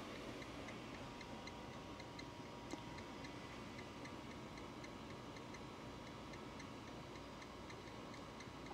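Faint, even ticking, about three ticks a second, with a faint steady high tone that comes in about a second in.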